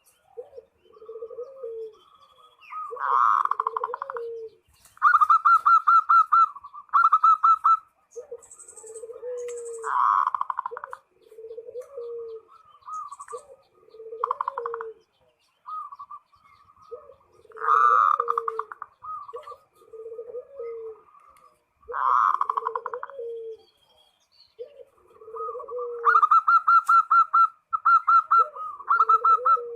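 Zebra dove (perkutut) cooing: a run of short, low coos repeated about once a second, mixed with louder, higher rapid trilling phrases.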